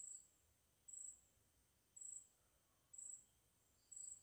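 Faint high-pitched insect chirps, about one a second, with a fainter, lower pulsing trill near the start and again near the end.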